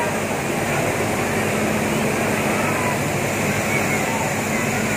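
Steady hum and hiss of a Nilgiri Mountain Railway steam locomotive standing at the platform, under the chatter of a crowd of people around it.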